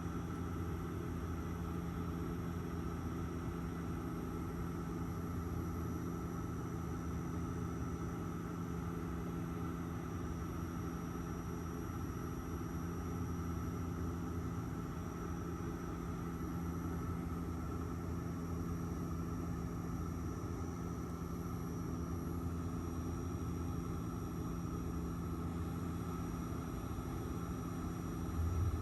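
Steady drone inside a passenger airliner's cabin: the rumble of engine and air noise with several unchanging hums, no change in pitch.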